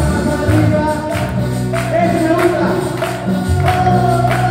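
Loud music with singing and a steady percussion beat.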